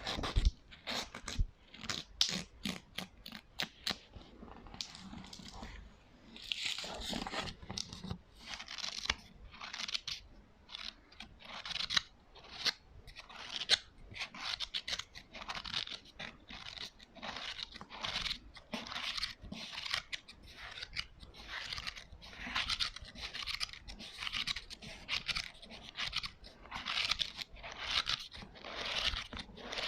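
Close-miked ASMR sounds made on a prop: a run of quick, sharp taps for the first few seconds, then rhythmic scratching strokes, about one a second.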